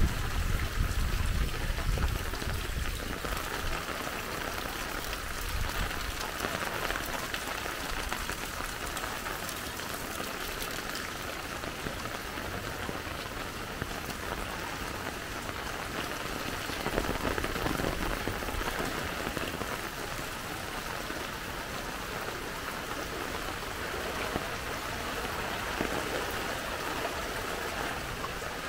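Heavy rain falling steadily, an even hiss, with a low rumble in the first few seconds.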